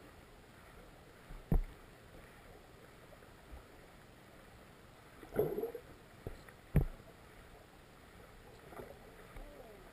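Muffled, steady murmur of river water heard through an underwater camera housing, with three dull knocks on the housing, about one and a half, five and a half and seven seconds in.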